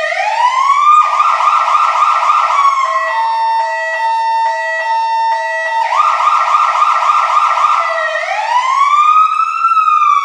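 Fire truck siren cycling through its modes. It starts with a rising wail, switches about a second in to a rapid yelp, then to a steady chord-like tone pulsing about three times a second. It returns to the rapid yelp and ends with a slow wail that rises and then falls.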